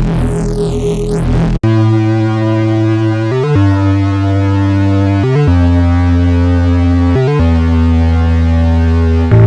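Presets of Ableton's Meld synthesizer being auditioned. A patch with a sweeping filter cuts off abruptly about one and a half seconds in. Then a sustained synth patch plays long held notes that change about every two seconds, sliding briefly from one to the next.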